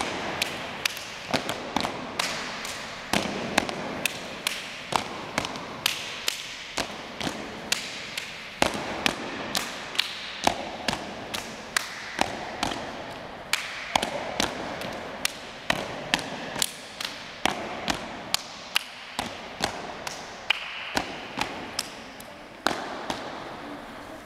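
A group of children clapping their hands together in a rhythm they made up, sharp claps at about two a second with a hall echo between them.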